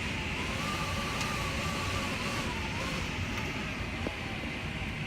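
Hurricane wind and rain: a steady rushing noise with a low rumble, and a faint wavering whistle in the first few seconds.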